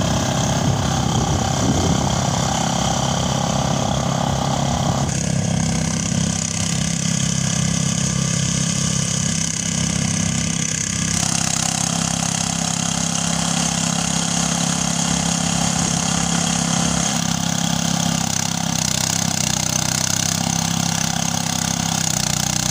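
Small engine-driven rice threshing machine running steadily, its engine and threshing drum working as rice bundles are fed in. The sound shifts slightly in character about 5 and 11 seconds in.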